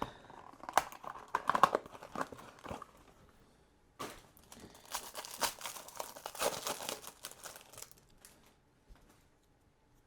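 Trading card packaging being torn open and crinkled by hand: wrapper crackling and tearing in two bouts, the second a little after the first, then it goes quiet near the end.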